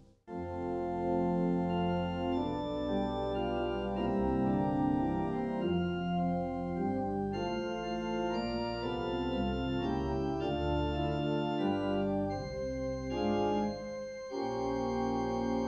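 Church organ playing slow, held chords with a moving upper line, the harmony shifting every second or so; the sound thins briefly near the end before fuller chords come in.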